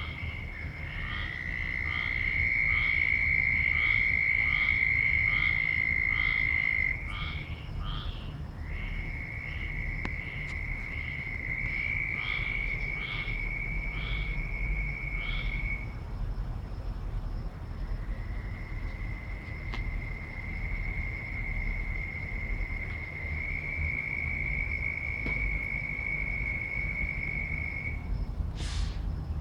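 Frogs calling loudly: a long high trill that goes on almost without a break, with a pulsed call repeating about three times a second over it for the first half. Near the end there is a brief sharp rising chirp.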